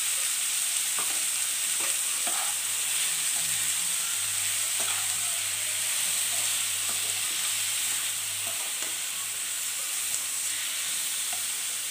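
Beef pieces and onions sizzling steadily in a frying pan while a spatula stirs and scrapes through them in uneven strokes.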